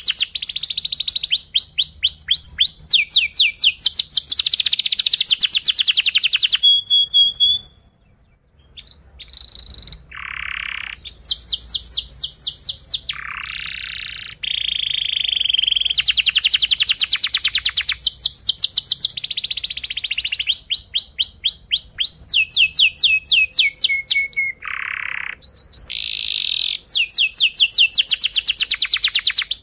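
Domestic canary singing a long song of rapid trills and rolls: strings of quickly repeated falling notes and buzzy held phrases, with one short break about eight seconds in.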